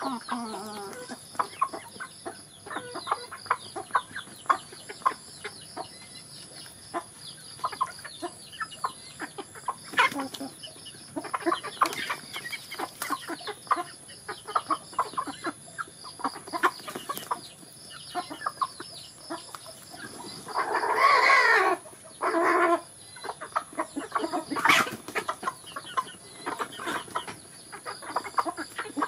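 A flock of chickens and roosters clucking as they peck grain off the ground, with many small quick taps and short calls. A little after two-thirds of the way through one bird gives a loud call of about a second and a half, then a shorter one.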